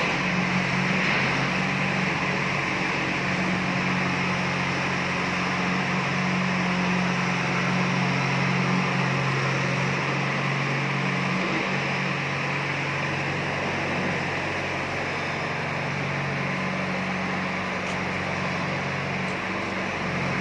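A steady low mechanical hum under a constant even hiss, like a motor or fan running.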